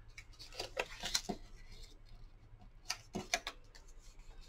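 Cardstock handled and folded by hand: faint crinkles and light taps of paper, in two short clusters about a second in and about three seconds in.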